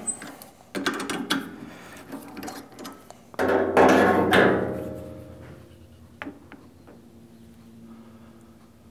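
Metal knocks and clinks as the aluminium part is handled in the lathe's four-jaw chuck. About three and a half seconds in comes one loud clank that rings on for a second or two, then a faint steady hum.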